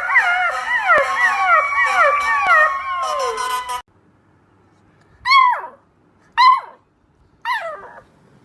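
Several puppies howling and whining at once, many wavering cries overlapping, which cut off abruptly. After a short pause a single puppy gives three short falling cries about a second apart.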